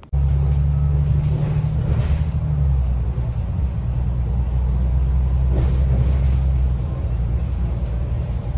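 Loud, steady low rumble, its pitch dropping slightly between two and three seconds in.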